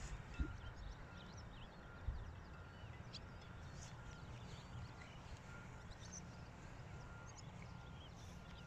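Open-air ambience: wind rumbling on the microphone, birds chirping faintly, and a faint short high beep repeating over and over, with a couple of soft thumps early on.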